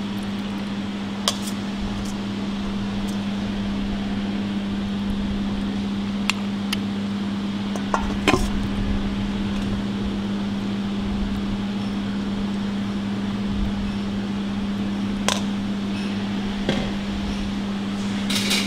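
Steady machine hum at one fixed pitch, with a few light clinks of a metal spoon against a stainless steel ring mould as salad is pressed into it.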